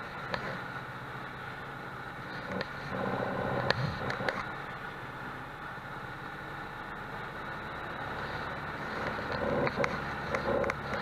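Single-engine light aircraft's piston engine running steadily, heard inside the cockpit with a low hum and rushing air. A couple of sharp knocks come about four seconds in.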